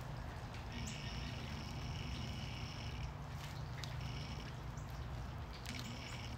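Outdoor background: a steady low hum, with a high, thin whistling tone that holds for about two seconds from about a second in and sounds again briefly near the end.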